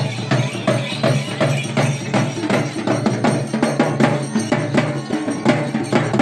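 Live folk drumming: double-headed barrel drums beaten with sticks in a fast, even beat, with other percussion and some pitched sound beneath.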